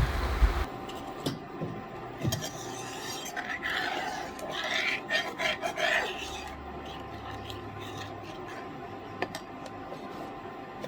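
A kitchen utensil scraping and rubbing against a cooking pot as coconut milk is stirred in, in uneven strokes with a few light clicks, fading out about six seconds in.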